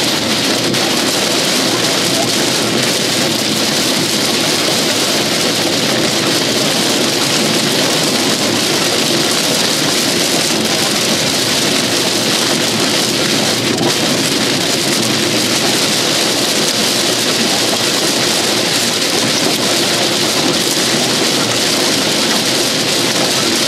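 Heavy rain pelting the windshield and roof of a moving vehicle, heard from inside the cabin as a steady, dense hiss.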